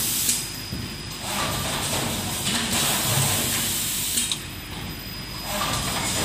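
Semi-automatic rigid box folding machine running in its work cycle. A loud hissing rush comes and goes about every four seconds, each time cutting off with a click, over a steady mechanical clatter with low thumps.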